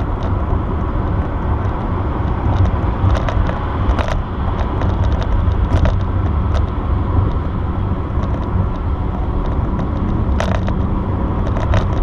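A car driving at highway speed, heard from inside the cabin: a steady low rumble of road and engine noise.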